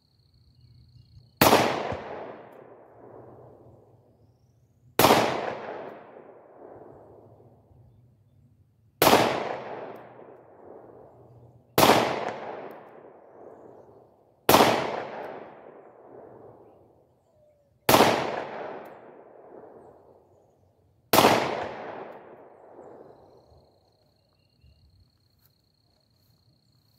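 Smith & Wesson Shield 9mm subcompact pistol firing seven slow, deliberate shots about three to four seconds apart. Each sharp crack is followed by a long echo that dies away over two to three seconds.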